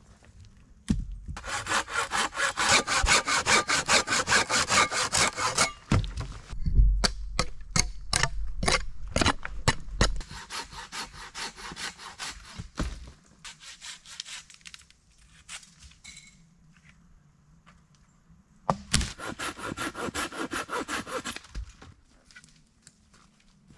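A hand saw cutting through wood in three bouts of quick, even back-and-forth strokes, with separate knocks and dull thuds of wood being handled in between.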